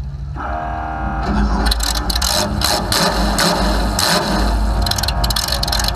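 Demolition derby car's engine running through short open upright exhaust stacks. It gets louder about a second in, then runs with an uneven, choppy note.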